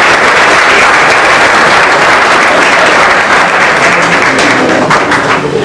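Audience applauding, a dense clapping that thins out near the end.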